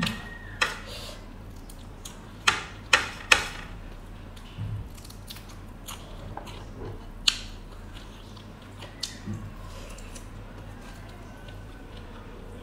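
Close-miked eating sounds of someone chewing boiled pork and handling it with the fingers: soft chewing with sharp wet clicks, a cluster of three loud ones about two and a half to three and a half seconds in and a few scattered single ones later.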